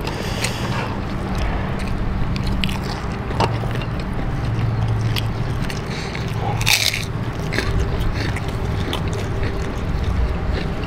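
Crunchy fried krupuk crackers being bitten and chewed close to the microphone, with scattered crackles and one loud crunch about seven seconds in, over a steady low rumble.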